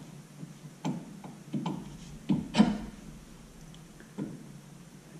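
Wilwood brake caliper clicking and knocking against its mounting studs and shims as it is worked into place over the rotor: about six separate metal knocks, the loudest a little past halfway.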